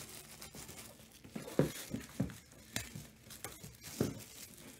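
Packaging being torn open and crinkled by hand: a few short, irregular tearing and crinkling sounds.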